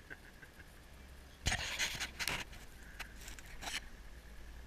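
Several short, breathy panting sounds, irregularly spaced, over a low steady hum.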